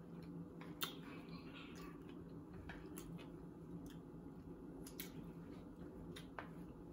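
Quiet eating of fried crab sushi rolls with wooden chopsticks: faint chewing and a few scattered light clicks, over a faint steady hum.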